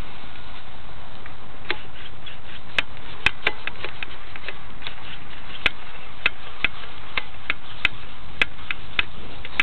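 Steady wind rushing over the small microphone of a cheap camera, with scattered sharp clicks at irregular intervals.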